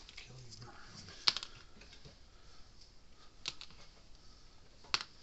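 Small electronic components being handled and set down on a workbench: three sharp light clicks, about a second in, at about three and a half seconds and near the end, the first the loudest, with faint rustling of parts between them.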